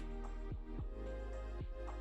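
Background music with held notes that change every half second or so.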